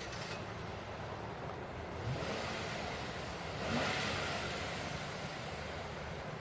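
Steady low rumble of a motor vehicle, with a short rising note about two seconds in and a louder rushing swell near the middle.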